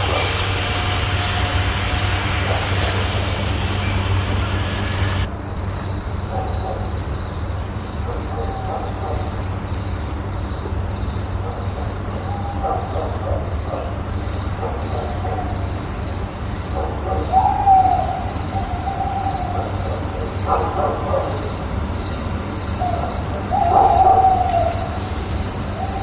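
A loud hiss cuts off about five seconds in. A steady cricket-like chirping then pulses about twice a second, with occasional hoot-like calls, the loudest ones near the end.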